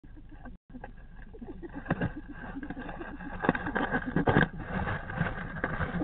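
An excited animal hidden in a nest of dry leaves making a rapid, irregular run of short, low snuffling or puffing noises with rustling, louder around the middle.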